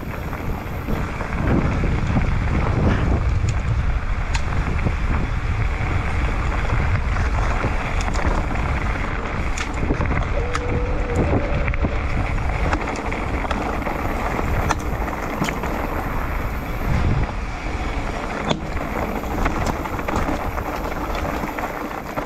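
Mountain bike rolling down a rocky dirt trail: tyres running over loose stones, with scattered sharp knocks and rattles from the bike, under steady wind noise on the microphone.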